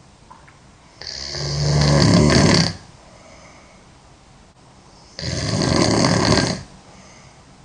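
A girl snoring heavily: two long, loud snores, each about a second and a half, the second following about four seconds after the first.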